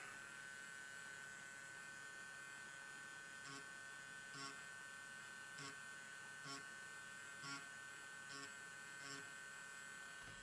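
Faint, steady electrical hum with a high whine running through it. From about three and a half seconds in, faint short taps come roughly once a second, about seven of them.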